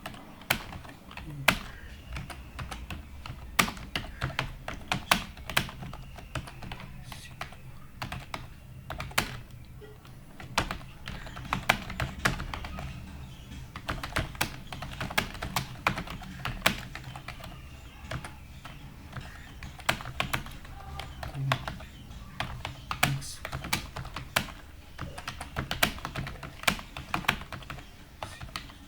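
Computer keyboard being typed on continuously: an irregular, fast stream of key clicks with some harder strokes standing out, over a low steady hum.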